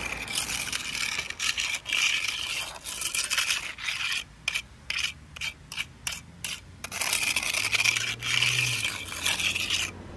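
A trowel scraping across asphalt as it spreads liquid crack filler into a driveway crack. Long scrapes at first, then a run of short quick strokes with pauses in the middle, then long scrapes again.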